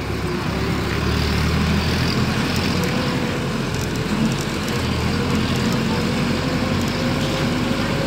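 A motor vehicle's engine running steadily with road noise while moving slowly.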